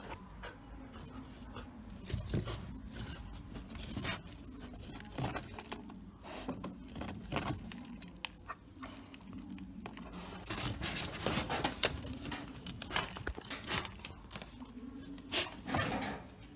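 Dogs scrabbling and rummaging while hunting a mouse: irregular scratching and rustling with many sharp clicks and knocks, busiest in the second half.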